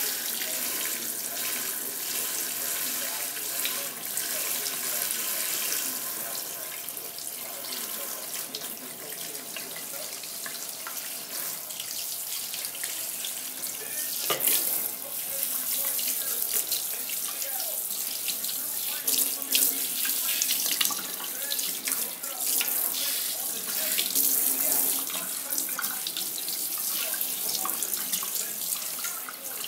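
Water from a kitchen faucet's pull-down sprayer running steadily into a stainless steel sink and over a bathing puppy, splashing, with a few louder splashes along the way.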